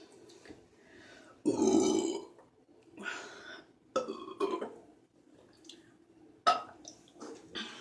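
A woman burping several times after drinking Pepsi, the longest and loudest burp about a second and a half in, followed by shorter ones.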